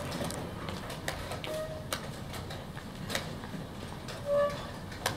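Sharp clicks and knocks of wooden chess pieces being set down and chess clock buttons pressed in quick succession, about five over a few seconds, over a steady low background noise. A short pitched tone, the loudest sound, comes a little past four seconds in.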